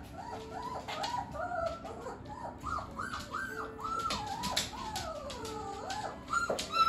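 Nineteen-day-old puppies whimpering: a quick string of short, high squeaky cries, each rising then falling in pitch, about three a second, with a few light clicks among them.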